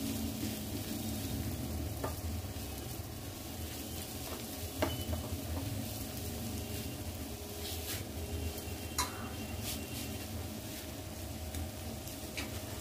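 Amla (Indian gooseberries) frying in a pan with a steady sizzle, stirred with a spatula, with a few sharp clinks of the spatula against the pan.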